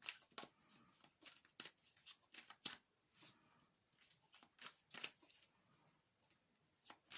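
A tarot deck being shuffled by hand: faint, irregular soft clicks and flicks of the cards.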